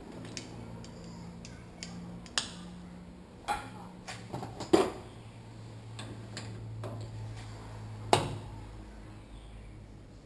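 Metal tools and fork parts clinking and knocking as they are handled during fork disassembly. About half a dozen sharp clinks, the loudest near the middle and another a couple of seconds later, over a low steady hum.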